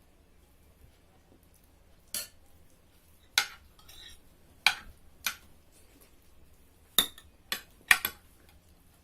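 Eating utensils clinking against plates and bowls during a meal: about eight sharp clinks at irregular intervals, the loudest ones near the end.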